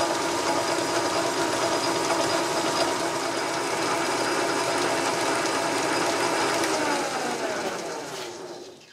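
South Bend metal lathe running steadily, its spindle and gear train whirring, while a knurling wheel is rolled into a spinning metal shaft. About seven seconds in it is switched off and coasts down, the pitch falling until it stops.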